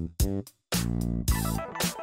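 Background music with a steady beat, dropping out for a split second about half a second in.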